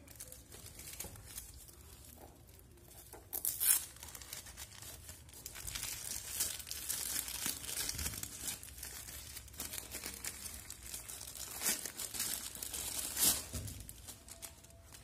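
Clear plastic wrapping crinkling and rustling as hands pull it off an analog multimeter, with a sharp loud crackle about four seconds in and another near the end.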